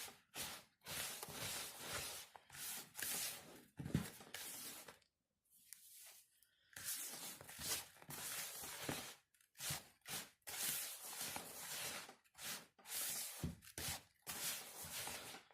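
Fingers working damp coarse semolina round in a bowl in a circular motion, a gritty rustling in short repeated strokes with a pause about five seconds in.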